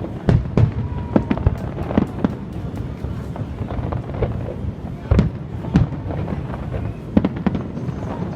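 Fireworks display: aerial shells bursting in quick, irregular succession, a dozen or more sharp bangs over a steady low rumble, with the loudest bangs about five to six seconds in and again near seven.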